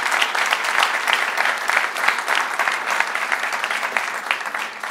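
Audience applauding: a dense run of many hand claps that starts to die down near the end.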